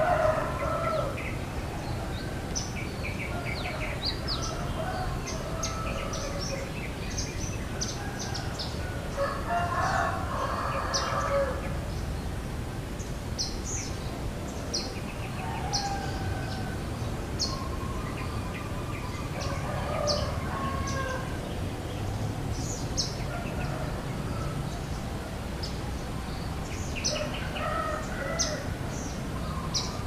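Roosters crowing several times, each crow drawn out for a second or two. Many short, sharp chirps from small birds run between the crows.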